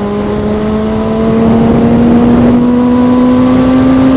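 Motorcycle engine pulling steadily while under way, its pitch climbing slowly as it gains speed, over rushing wind noise. It gets louder about a second in.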